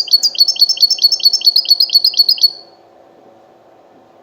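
Small finch singing a fast, even trill of identical high, downward-sliding notes, about seven a second, which stops about two and a half seconds in.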